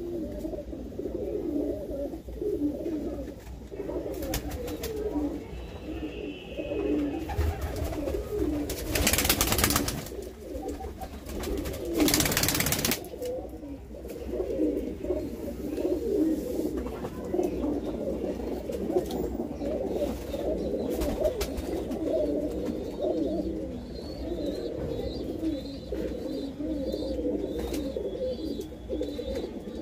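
Many domestic pigeons cooing at once, a continuous overlapping chorus of low coos. Two brief loud rushes of noise break through, about nine and twelve seconds in.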